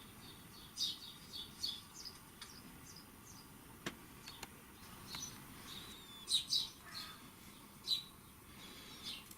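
Garden birdsong played back from a recording: several birds giving short high chirps and whistled calls, with a single sharp click about four seconds in.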